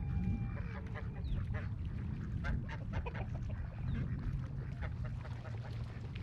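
A group of ducks quacking and calling over one another, many short overlapping calls, over a steady low rumble.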